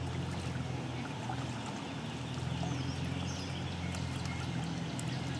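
Shallow stream running steadily over rocks and stones.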